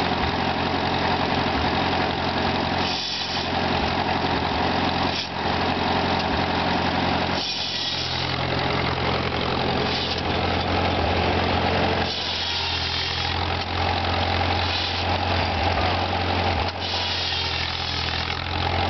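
Old Oliver tractor engine running steadily under belt load, driving a shingle mill. Every two seconds or so the saw rasps briefly through the wood as a shingle is cut.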